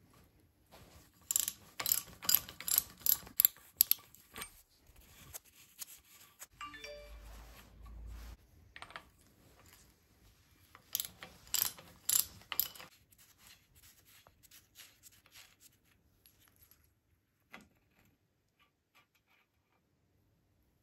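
A ratchet and socket working the steering-stem nut on a motorcycle's fork yoke: two runs of sharp, ringing metal clicks, the first about a second in and the second around the middle, with quieter metal handling and a short low rumble between them.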